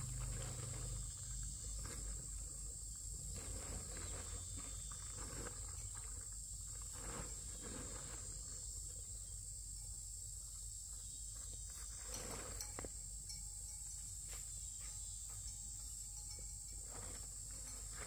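Steady high-pitched insect chirring over a low rumble, with scattered soft knocks and rustles.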